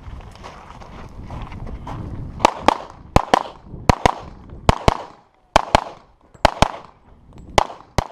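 Pistol shots fired rapidly in pairs, about fourteen shots over some five and a half seconds, starting about two and a half seconds in. Before them comes a rushing noise.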